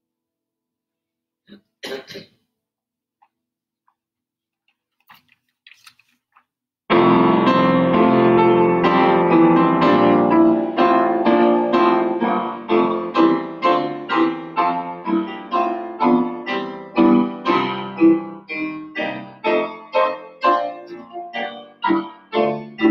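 Piano music begins abruptly about seven seconds in with a loud chord, followed by a steady run of struck notes that each die away. Before it there is near silence, broken by a short noise about two seconds in and a few faint clicks.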